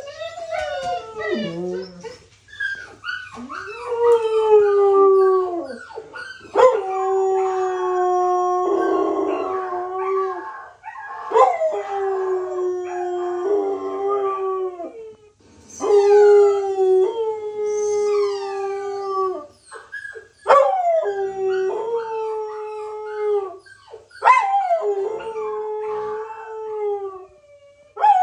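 Puppy crying: about seven long, whining howls a few seconds apart, each starting high with a sharp yip and dropping to a held, steady pitch.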